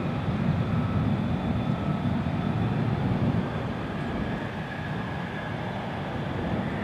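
Jet noise from an F-35A Lightning II's single Pratt & Whitney F135 afterburning turbofan heard at a distance: a steady low rumble with a faint thin whine above it. It eases off a little about three and a half seconds in.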